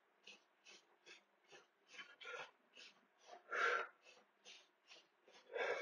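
Quick, rhythmic breaths of a man exerting himself in fast mountain climbers, about two or three a second, with a few louder, strained exhales.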